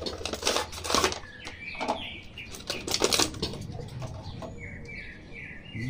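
Plastic blister tray and cardboard toy box crinkling and rustling in a string of quick crackles as an action figure is pulled out, then quieter handling.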